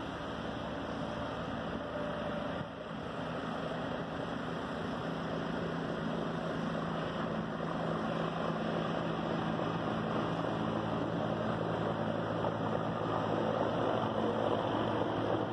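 A steady engine drone that slowly grows louder, with a low hum held throughout.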